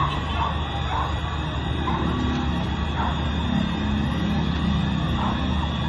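Emergency vehicle sirens in the distance, rising and falling in pitch over a steady low background rumble.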